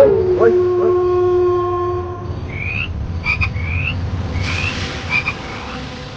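A held sung note from background music fades out about two seconds in. Then frogs call in short rising chirps, repeated every half second to a second, over a steady low hum.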